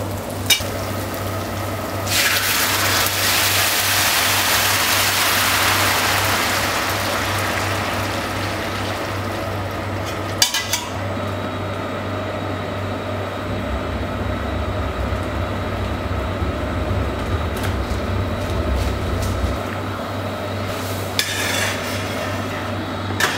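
Hot stock poured into a paella pan of fried rice. It hisses loudly from about two seconds in, then fades over several seconds to a steady simmer. There is a single knock about ten seconds in, and a spoon stirs in the pan near the end.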